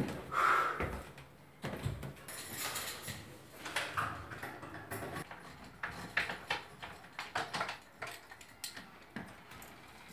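Irregular footsteps and knocks on a staircase and in a house, with a door being handled near the end.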